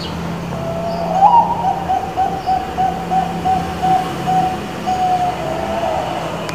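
Zebra dove (perkutut bangkok) singing one full song: a short rising opening note, then a run of about a dozen quick, evenly spaced coos on one pitch, ending in a longer note and a lower falling tail. A low steady hum runs underneath.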